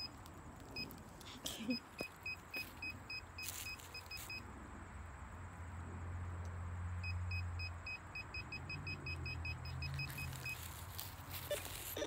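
Handheld metal detector beeping in quick, evenly spaced high pips, about four or five a second, in two runs of a few seconds each, sounding off over metal in the dirt. A low steady hum sits under the second run, and a few sharp knocks of digging come between.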